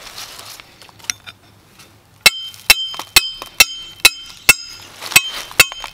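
Hammer driving a metal stake for a coil-spring foothold trap into the ground: after a quiet start, about eight sharp metal-on-metal strikes with a short ring, roughly two a second, beginning about two seconds in.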